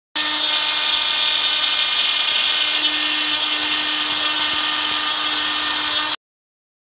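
CNC router spindle running at speed with its end mill cutting into a board: a steady high whine with cutting noise, starting and cutting off suddenly.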